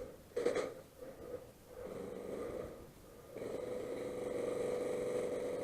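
Airsoft electric guns firing full-auto bursts, a fast buzzing rattle: a short burst, then a burst of about a second, then a longer one of about two and a half seconds that ends just before the end.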